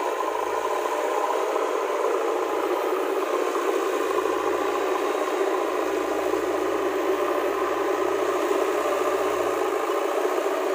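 JCB 3DX backhoe loader's diesel engine running steadily as the machine pushes soil with its front bucket, with a deeper rumble that comes and goes underneath.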